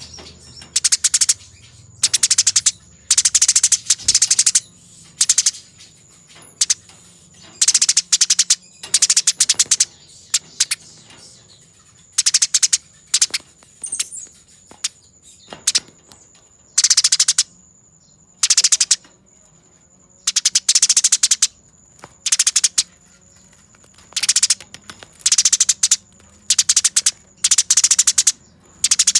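Eurasian tree sparrows in a squabble, giving bursts of fast, dense, shrill chattering trills. The bursts repeat every second or two, each lasting from a fraction of a second to about a second and a half, over a faint steady high whine.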